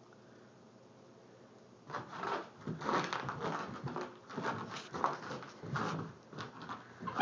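Italian Greyhound's paws thudding and scuffing on carpet as she leaps and pounces, an irregular run of soft thumps starting about two seconds in.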